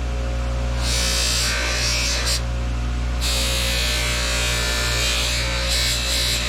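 Electric buffing wheel running with a steady motor hum, polishing a Zebco 33 reel handle. A high rushing hiss comes and goes several times as the wheel rubs against the part.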